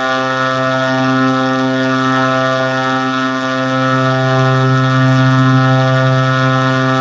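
A loud, steady droning tone at one low pitch with many overtones, holding without any change in pitch or level.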